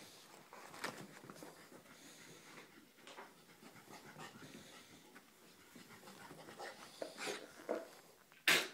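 Wire fox terrier panting faintly while it dashes around, with one sudden loud thump near the end.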